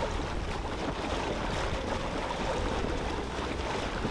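Steady wind noise and water rushing past the hull of a small sailboat sailing upwind with its engine off.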